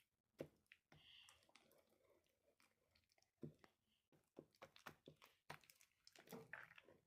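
Faint, scattered clicks and crinkly handling noises from slime-making materials being worked by hand, with a few sharper clicks about half a second in, about three and a half seconds in and at the very end.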